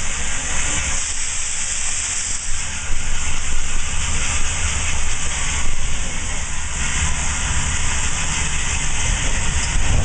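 Steady steam hiss inside the cab of ATSF 3751, a 4-8-4 steam locomotive, with a steady low rumble underneath.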